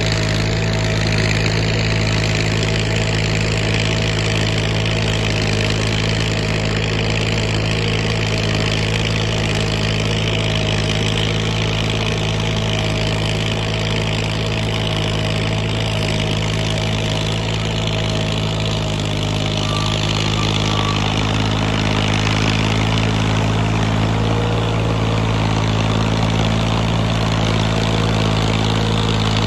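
Massey Ferguson 240 tractor's three-cylinder diesel engine running steadily as it pulls a cultivator through a flooded field, with a slight shift in its note about twenty seconds in.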